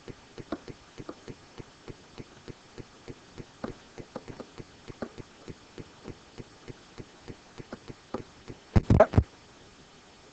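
A stylus clicking and tapping on a writing surface as words are handwritten: light, uneven clicks about three or four a second, with a louder knock near the end.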